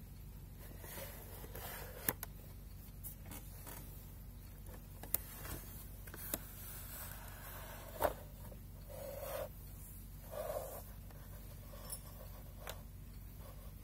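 Hands handling a small 3D-printed case while opening its lid and front panel: a few sharp clicks and knocks, the strongest about eight seconds in, with short rubbing and scraping of the printed parts between them, over a faint steady hum.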